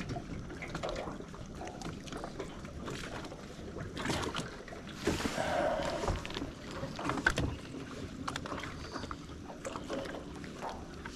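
Scattered light clicks, taps and rustles of hands working a fishing hook and line free from a rope, with a longer rustle about five seconds in.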